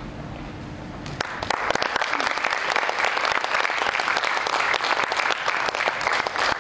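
Audience applauding, breaking out about a second in and carrying on as a dense, steady patter of many hands clapping. Before it there is only a low hum.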